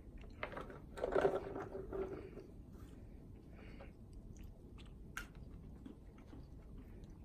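American Eskimo dog sniffing and snuffling for food: a run of short nose and mouth noises, loudest in a cluster about a second in that carries a brief low tone, then fainter scattered clicks with one sharp click about five seconds in.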